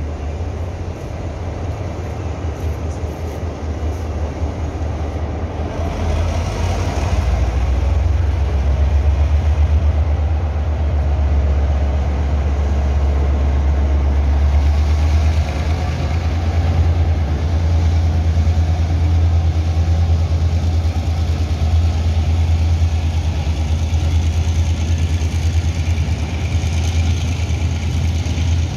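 Taiwan Railway diesel locomotive passing, pulling a freight train: a steady low engine drone that builds up over the first several seconds as it nears and then holds, with the rolling of the freight wagons behind it.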